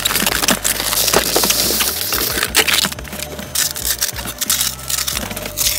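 Cardboard box and styrofoam packing being handled and pulled apart, a dense run of crackles, creaks and sharp clicks.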